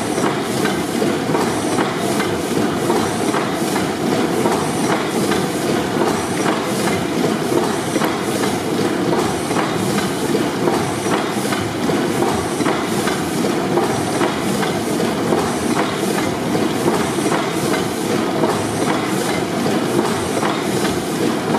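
600 HP Snow pipeline compressor engine, a large double-acting four-stroke gas engine, running steadily with a continuous mechanical clatter and fine rhythmic clicking.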